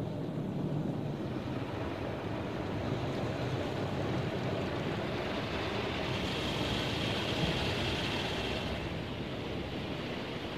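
Automatic rollover car wash heard from inside the car cabin: a steady rush of water spraying and running over the car's body and glass, with the wash machinery running. A brighter hiss swells about six seconds in and fades about three seconds later.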